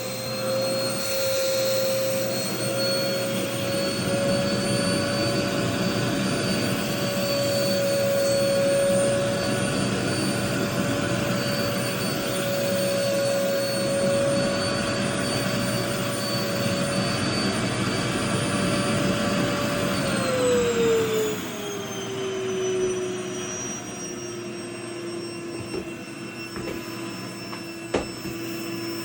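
Vacuum cleaner motor running with a steady whine and rush of air; about two-thirds of the way through its pitch drops to a lower whine and it gets quieter. A single click near the end.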